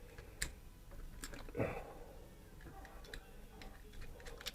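Faint, scattered small clicks and taps of a tool working at a retaining pin in a Diana Model 75 air rifle's action, with a few quick clicks near the end; the pin is stuck and does not come out.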